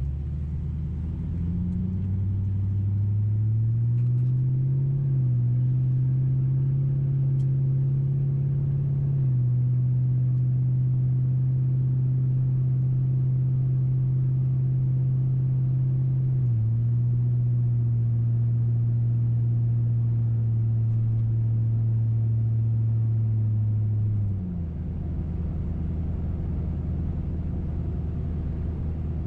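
2005 Mercury Grand Marquis 4.6-litre V8 with a muffler delete (catalytic converters and an H-pipe only), heard from inside the cabin, pulling away: the exhaust drone rises in pitch with dips at the automatic transmission's upshifts over the first nine seconds, then holds a steady drone at cruise. About 24 seconds in the drone drops away and the sound falls quieter as the throttle is eased off.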